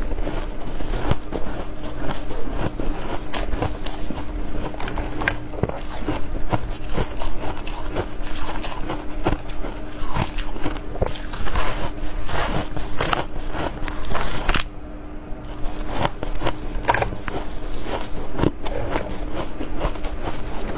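Shaved ice being bitten and chewed, a dense run of crisp crunching and crackling, with a short pause about three quarters of the way through.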